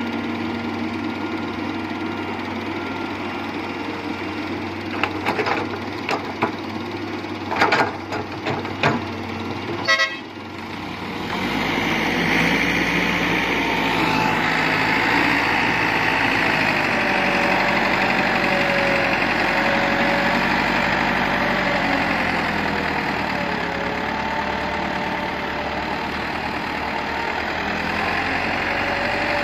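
Diesel engines of a Hitachi excavator and a Massey Ferguson tractor running together. A run of sharp knocks comes about five to ten seconds in. After that the engine noise grows louder, with a wavering whine over it.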